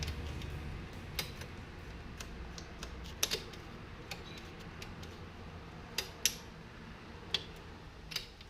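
Sharp clicks of a 1975 Kawasaki KZ400's gear shifter mechanism being worked by hand with a new return spring fitted. About eight separate clicks come at irregular intervals, the mechanism shifting properly again.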